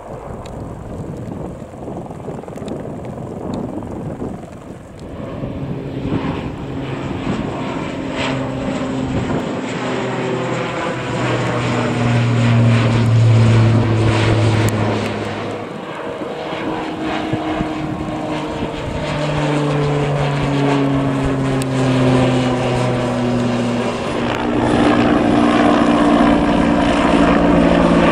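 Aircraft passing low overhead: a steady engine and propeller drone with tones that slide down in pitch as each goes by. It is loudest about halfway through and again near the end.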